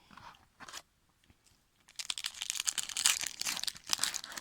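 Foil trading-card pack wrapper being torn open and crinkled: a few soft rustles, then a dense, loud crackle from about two seconds in.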